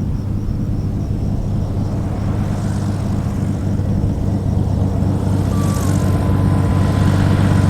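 Propeller aircraft engine running with a steady hum that grows gradually louder. A faint thin whine joins about five and a half seconds in.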